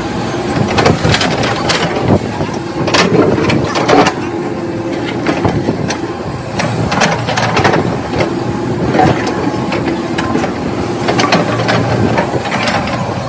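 Hitachi ZX120 excavator's diesel engine running steadily under hydraulic load while its bucket scrapes and breaks up concrete slab and rubble, with repeated irregular knocks and crunches of concrete chunks.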